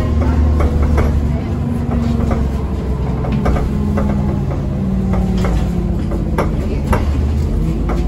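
Orion city bus heard from inside while under way, its engine running with a shifting note, with irregular sharp knocks about twice a second from the right side. The rider suspects the knocking comes from underneath the seat or from the wheel.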